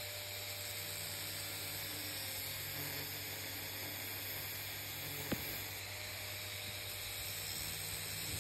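Steady hiss with a low hum underneath and a faint wavering tone, broken by a single sharp click about five seconds in.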